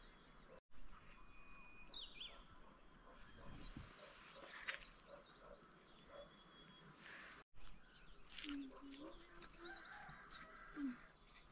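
Faint rural outdoor ambience with small birds chirping now and then. The sound cuts out completely for a moment twice.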